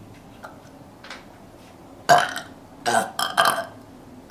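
A woman burping: one loud, abrupt burp about two seconds in, followed about a second later by a few shorter burps in quick succession.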